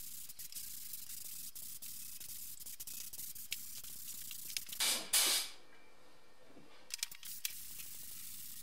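Compressed-air gravity-feed spray gun hissing steadily as it sprays primer onto a motorcycle fuel tank. There is a louder burst about five seconds in, then the spray stops for about a second and a half and starts again.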